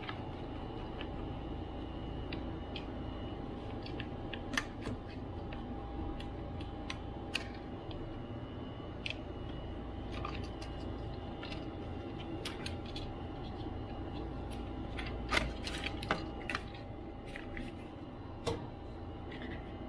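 Scattered light clicks and taps of small tools and parts being handled on a laptop under repair, the sharpest ones past the middle, over a steady background hum with a faint constant tone.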